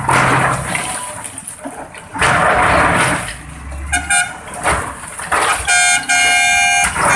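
A vehicle horn sounds twice: a short toot about four seconds in, then a longer blast near the end. Before it come two loud rushes of noise.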